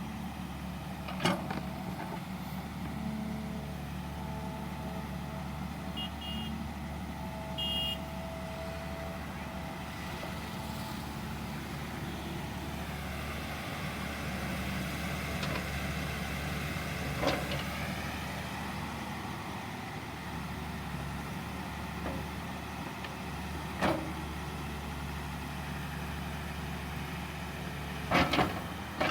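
Tata Hitachi excavator's diesel engine running steadily while digging, with a few sharp knocks and a quick cluster of them near the end.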